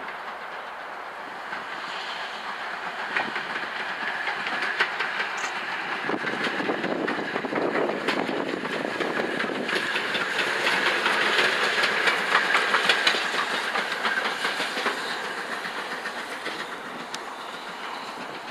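BR Britannia class 4-6-2 steam locomotive No. 70013 Oliver Cromwell running past, its wheels clicking over the rail joints along with its steam exhaust. It grows louder to a peak about ten to thirteen seconds in, then fades as it draws away.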